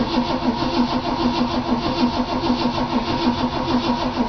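Starter cranking the 1966 Ford Thunderbird's V8 in a steady, even rhythm without it catching: a hard cold start after the car has sat for a couple of months on stale fuel.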